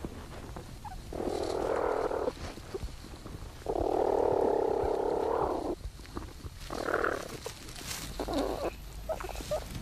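A platypus mother and her suckling young in their nesting chamber, heard through a microphone inside the burrow: four rasping bursts of sound, the longest about two seconds, with quieter scratching between them.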